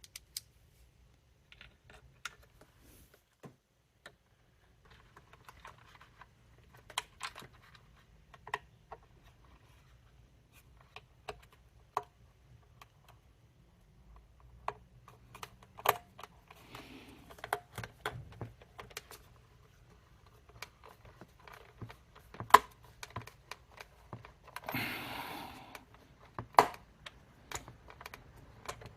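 Scattered small clicks and taps of plastic Dyson cleaner-head parts and small screws being handled and fitted together by hand, with a short scraping rustle near the end.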